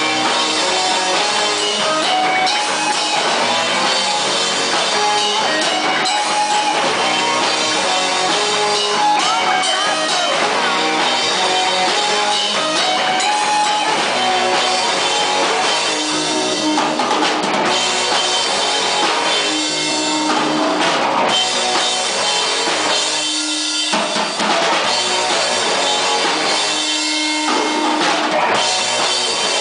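Live rock band playing electric guitar over a drum kit. In the second half the band plays short stop-time hits, with a single held note ringing alone in the gaps between them.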